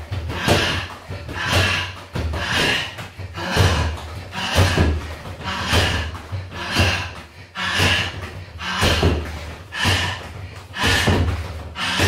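Barefoot kicks striking a free-standing punch bag in a steady rhythm, about one heavy thud a second.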